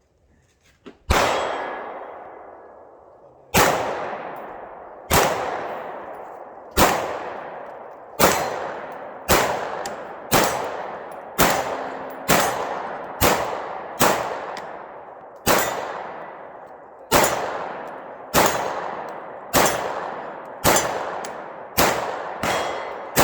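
A firearm shot repeatedly, one round at a time: about eighteen sharp reports, each trailing off in a long echoing decay. The shots come faster as the string goes on.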